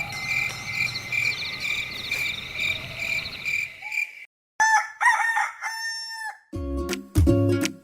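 Night chorus of frogs and insects, a steady pulsing chirp that cuts off abruptly about four seconds in. A rooster then crows once, and plucked-string music, ukulele-like, starts near the end.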